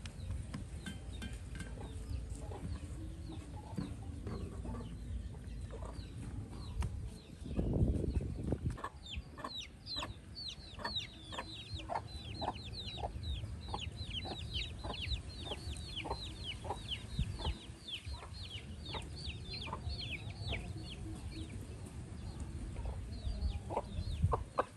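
Birds chirping in quick runs of high, falling chirps, starting about a third of the way in and going on nearly to the end, over a steady low hum. A loud dull thump comes just before the chirping starts.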